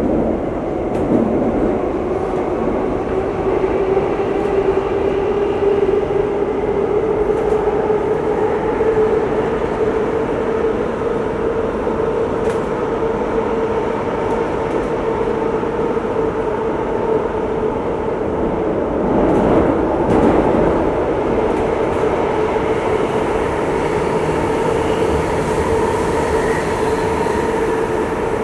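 Downtown Line MRT train, a Bombardier Movia, running through a tunnel, heard from inside the car: a steady rumble with a whine that rises slightly in pitch over the first several seconds and then holds. About 19 seconds in there is a brief louder rumble.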